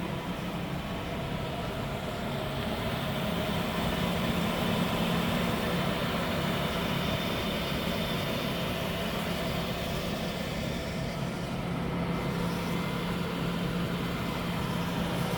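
Knuth RSM 1500C cylindrical grinder running idle with its grinding wheel spindle turning: a steady machine hum with a low tone, swelling slightly a few seconds in.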